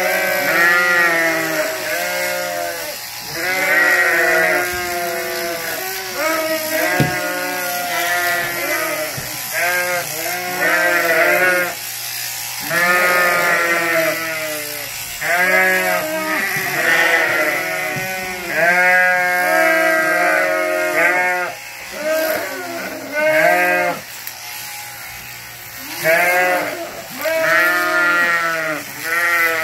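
Sheep bleating over and over, one loud call after another every second or two, over the low steady hum of electric sheep-shearing clippers.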